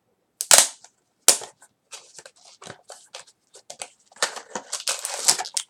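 Blind-box toy packaging being torn open by hand: two sharp cracks near the start, then rustling and crinkling that grows busier toward the end.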